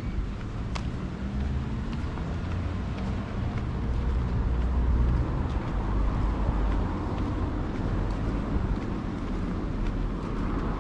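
City street traffic, cars passing, over a steady low rumble.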